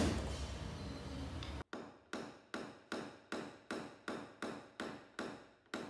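Paintless dent repair tapping on a car's steel hood: a small hammer striking a tap-down tool in light, evenly spaced taps, about two and a half a second, each with a short metallic ring, to work out small marks in the panel. The taps start about a second and a half in, after a steady low hum.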